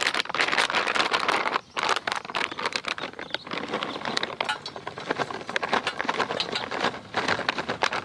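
Crinkly plastic food pouch handled and shaken as its dry contents are tipped into a steel bowl: a dense run of crackles and rustles, with a brief pause about a second and a half in.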